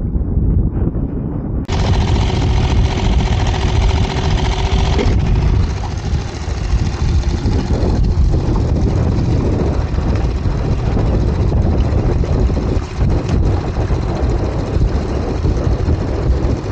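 Heavy wind rumble buffeting the microphone in an open boat at sea. A steady humming tone comes in suddenly about two seconds in and stops about five seconds in.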